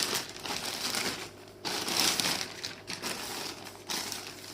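Plastic packaging crinkling and rustling in several handled stretches, as a motorcycle wiring harness kit is handled.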